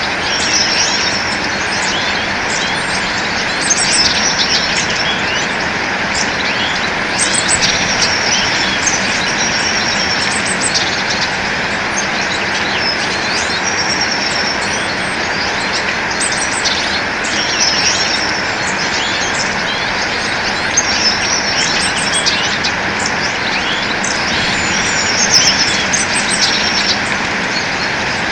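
Many small birds chirping and twittering, with short repeated whistled notes every couple of seconds, over a steady rushing background noise.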